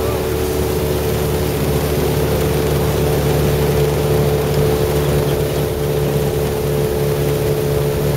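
Motorboat engine running steadily at an even pitch, with no change in speed.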